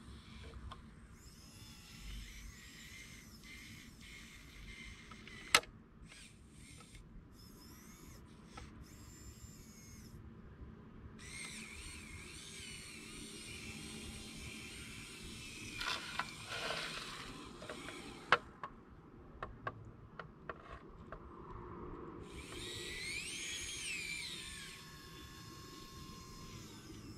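Small electric motors of radio-controlled scale construction machines whining, the pitch rising and falling as they work, with a sharp click about five seconds in and a burst of ticking and clatter past the middle.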